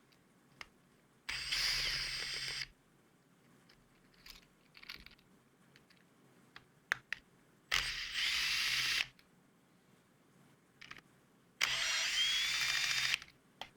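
Electric screwdriver running in three short bursts of about a second and a half each, backing out the screws that hold a skateboard wheel, with small clicks of handling in between; the whine rises in pitch during the last burst.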